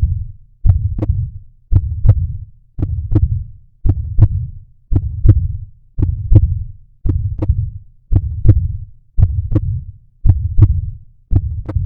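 Heartbeat sound effect: a steady, slow lub-dub, a low double thump repeating about once a second.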